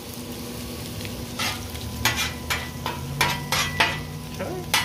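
Chopped bacon sizzling steadily in its own grease on a steel flat-top griddle, close to crisp. From about a second and a half in, metal spatulas scrape and clack against the griddle surface as the bacon is stirred, in a string of short strokes.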